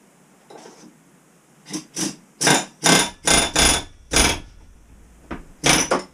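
A Cornwell pneumatic air chisel fired in about eight short bursts, starting about two seconds in, hammering a jet ski's drive coupler loose from the engine's crankshaft.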